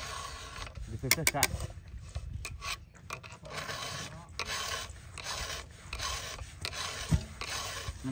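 Repeated rasping strokes, about two a second, with no engine running.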